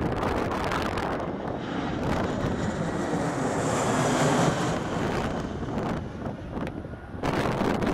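Airbus A320-family airliner on landing approach passing low overhead: jet engine noise with a high whine that swells to its loudest about halfway through, then fades as the plane moves away. Gusty wind buffets the microphone at the start and again near the end.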